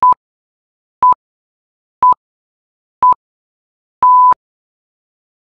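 Electronic workout-timer countdown beeps in otherwise dead silence: four short beeps at the same single pitch, one a second, then a longer beep about four seconds in that signals the start of the next exercise.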